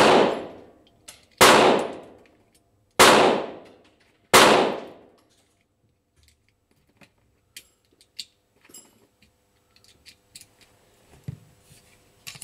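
Four pistol shots about a second and a half apart, each sharp crack ringing out for about a second, followed by a few faint clicks.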